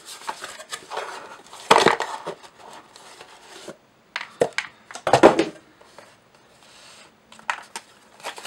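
A cardboard box being opened and handled by hand: flaps scraping and rubbing, with scattered sharp clicks and knocks as the packaged part is lifted out. The two loudest rustling bursts come about two seconds in and about five seconds in.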